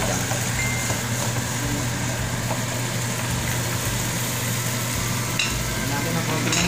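Sardines and garlic sizzling in hot oil in a wok, stirred and scraped with a wooden spatula, over a steady low hum. A couple of short clicks near the end.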